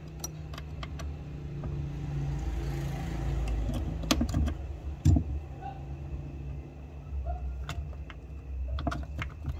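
Heavy battery cables and metal busbar terminals being handled, giving scattered clicks and knocks, the loudest about five seconds in, over a steady low rumble.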